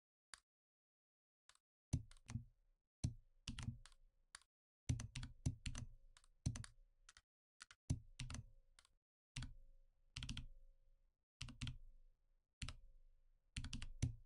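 Computer keyboard keys and clicks being pressed, faint. A few sparse clicks at first, then from about two seconds in irregular clusters of keystrokes with a dull thump under each.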